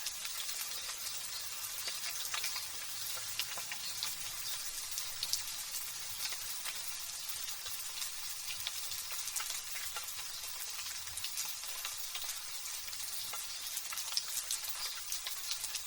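Light drizzling rain: a steady high hiss dense with tiny crackling drop ticks.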